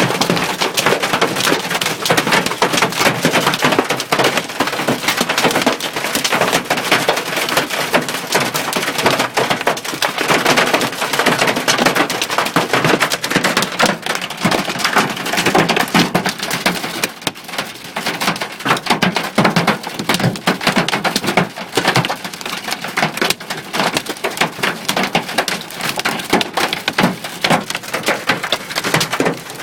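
Hailstones pelting a car's roof and windscreen, heard from inside the car: a dense, continuous clatter of countless small impacts that swells and eases slightly.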